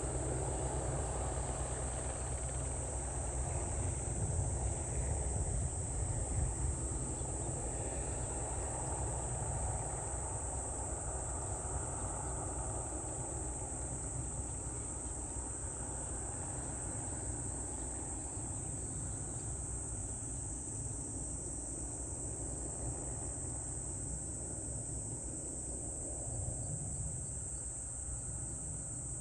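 Insects buzzing in a steady high-pitched drone over a low rumble that slowly eases off.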